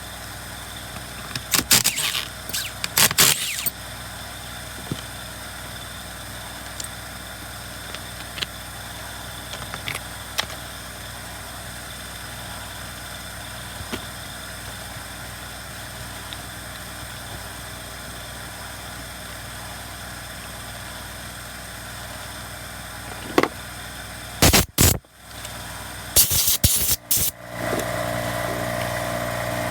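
Steady machine hum with short bursts of clattering metal as tools and saw parts are handled, twice, near the start and again near the end. Just before the end the hum gets louder and takes on a new, higher note.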